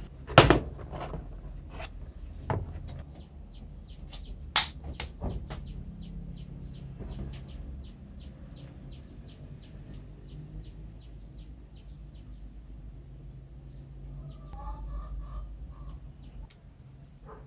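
Small birds chirping and twittering in the background, with a warbling song near the end. A few sharp knocks and clicks of a tool and multimeter test leads being handled on a workbench come in the first five seconds; the loudest is about half a second in.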